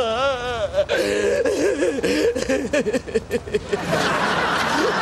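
A man wailing and sobbing in exaggerated comic crying, his voice wobbling up and down in pitch. From about four seconds in, studio audience crowd noise rises under it.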